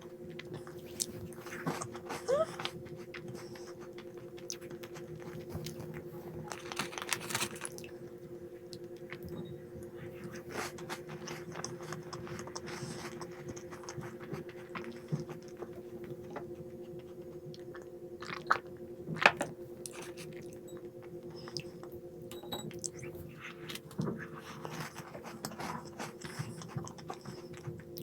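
A person chewing and biting crunchy snacks, with many short, irregular crunches. A steady hum runs underneath.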